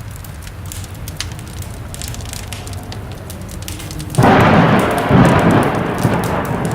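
Designed horror ambience: a low rumble with scattered faint crackles, then about four seconds in a loud rushing noise cuts in abruptly and keeps going.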